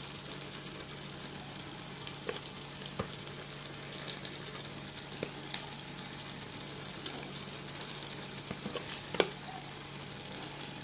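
Marinated fish pieces sizzling as they are laid by hand into hot oil and masala in a clay pot. A steady frying hiss runs throughout, with scattered pops and clicks; the sharpest is about nine seconds in.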